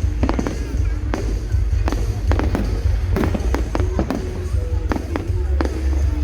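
A fireworks display: shells bursting in quick succession, about three sharp bangs a second, over a steady low rumble, with music playing underneath.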